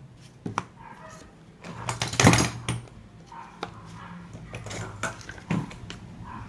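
Hard plastic clicks and knocks of a clip fan's blade and guard being handled and fitted back on, with one louder clatter about two seconds in.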